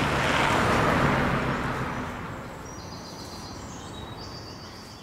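A road vehicle passing: a rush of road and wind noise with a low engine hum, fading away over about two seconds. Faint bird chirps follow near the end.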